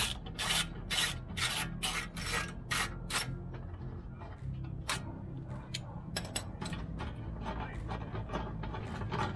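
Ratchet wrench undoing the hub's bolts: rasping strokes about two a second for the first three seconds, then lighter, quicker ratchet clicks as the bolt turns freely.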